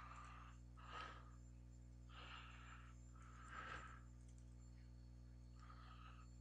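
Near silence: a steady low hum, with about five faint breaths close to the microphone.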